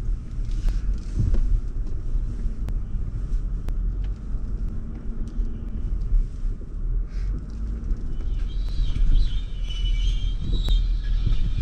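Land Rover driving slowly off-road: a steady low rumble of engine and tyres with occasional sharp knocks. From about eight seconds in, a high, wavering squeal joins it.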